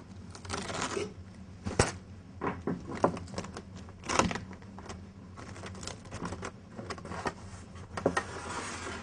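Plastic cling film crinkling and crackling as it is stretched and smoothed down by hand over metal baguette trays, with a few sharp clicks along the way.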